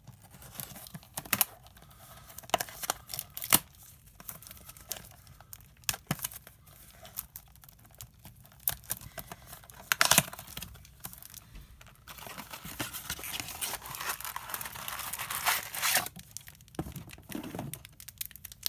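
Foil wrapper of a Topps baseball card pack being torn open and handled, crinkling with scattered sharp crackles, turning into steadier crinkling in the last third as the cards are worked out of it.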